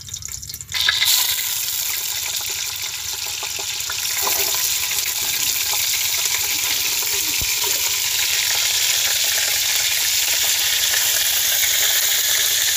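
Fish pieces sizzling as they fry in hot oil in a steel pot. The sizzle starts suddenly about a second in as the fish goes into the oil, and grows louder about four seconds in.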